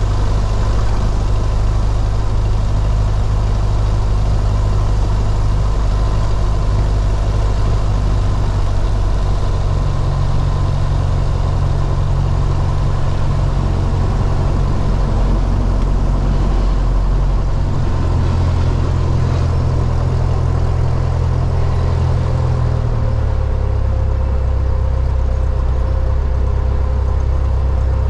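Cessna 172's piston engine running at low taxi power, a loud steady drone that shifts pitch slightly a few times.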